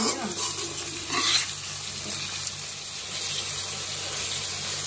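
Raw chicken pieces and onions frying in oil in a seasoned kadai, a steady sizzle. A perforated steel spatula stirs them, scraping briefly near the start and again about a second in.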